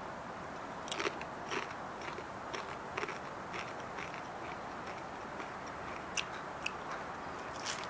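A person biting into and chewing a crisp Jolo chip: faint, irregular crunches, several close together in the first few seconds and a few more near the end.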